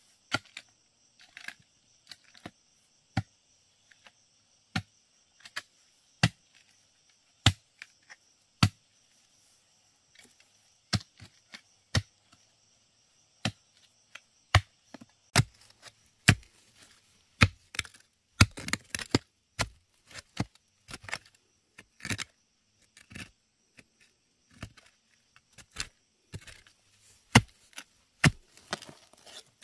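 Repeated sharp chopping strokes of a blade striking wood or a firm surface, irregular at first, about one a second, then coming faster and in clusters from about halfway through.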